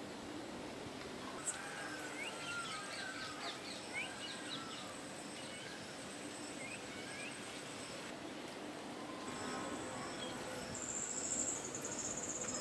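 Rural outdoor ambience: a run of short bird chirps and whistles for a few seconds, over a thin, steady, high insect whine, with a pulsing insect buzz near the end.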